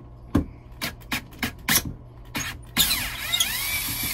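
Cordless drill-driver unscrewing a six-point screw from the base of a porcelain toilet: a few sharp clicks and knocks as the bit is set on the screw, then about three seconds in the motor runs with a whine that rises and falls in pitch.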